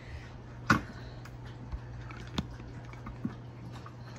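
A few short, sharp knocks and clicks, the loudest just under a second in, over a low steady hum.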